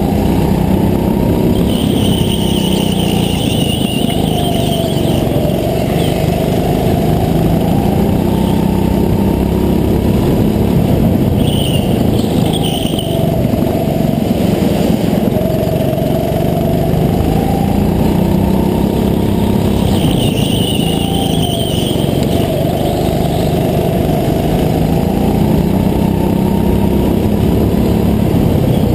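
Go-kart engine running hard through a lap, heard onboard, its note rising and falling with the throttle. A high squeal comes in three times, lasting a second or two each.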